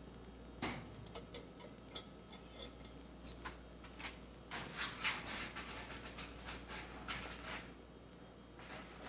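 Light metallic clicks and clatter of cylinder head parts being handled while valve springs are taken off, with a busier stretch of rattling and scraping in the middle.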